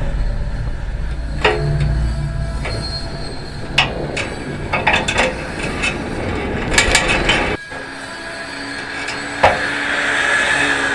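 Rusty city bicycle (mamachari) rattling, with scattered sharp metal clicks and short squeaks of rusted parts over a low rumble. The sound cuts off abruptly a little past halfway into a quieter stretch with a faint hum and one more click.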